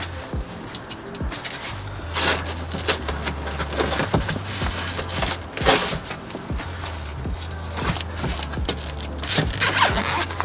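Fabric sun-visor organiser being strapped onto a van's sun visor: rustling and scraping of the fabric against the visor, with three short rasping bursts of its Velcro straps, about two, six and nine and a half seconds in.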